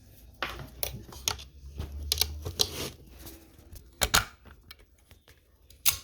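Irregular sharp clicks and crackling pops, about a dozen over a few seconds and loudest around four seconds in and near the end, with a brief low hum around two seconds in: the weird noise coming from a Line 6 HX Stomp guitar effects rig.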